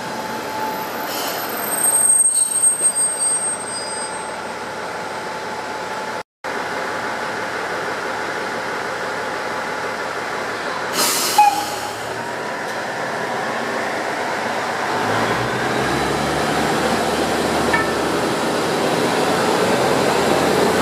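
Electric train at a station platform: the brakes squeal with high-pitched pulses as it comes to a stop, and there is a short hiss near the middle. In the last few seconds the traction motors whine up in pitch and the sound grows louder as it pulls away.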